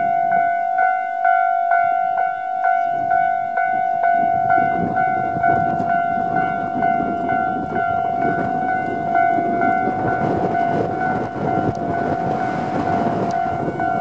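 Japanese level-crossing alarm ringing its repeated electronic bell tone, about two strikes a second. From about four seconds in, the rumble of an approaching Tobu 10000-series electric train rises beneath it and grows loud near the end.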